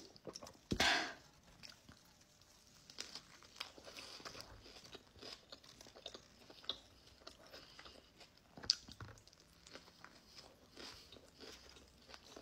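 Close-up chewing and biting of a deli sandwich, with soft irregular crunches and wet mouth clicks. A louder short noisy burst comes about a second in, and a sharp click comes later.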